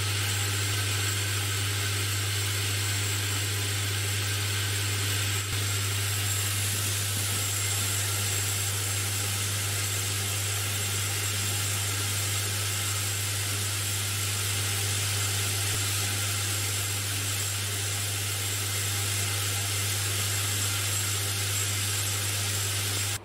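Laboratory sieve shaker running with a clamped nest of stainless-steel soil sieves holding a soil sample, shaking it to grade the particles by size. The sound is a steady low hum with an even hiss over it.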